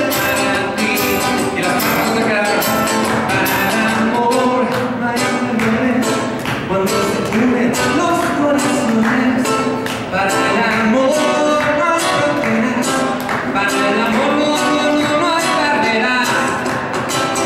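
A man singing a song while strumming a small acoustic guitar in a steady rhythm.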